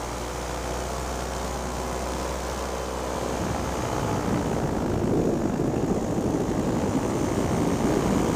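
Paramotor's two-stroke engine and propeller running steadily in flight. A little over three seconds in, a louder wind rush on the microphone builds up over it.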